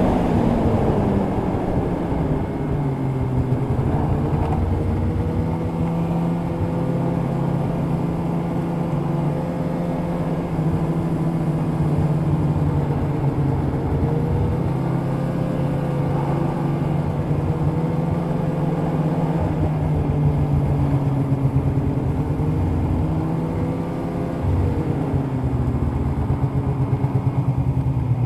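Polaris two-stroke snowmobile engine running under way along the trail. Its pitch drops about a second in as the throttle eases, then holds at a steady cruising speed with small rises and falls, and dips again near the end as the sled slows.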